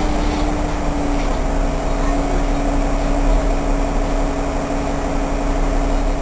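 Interior sound of a Solaris Urbino 8.6 midibus standing at a stop: the engine idles with a steady low rumble and an even hum.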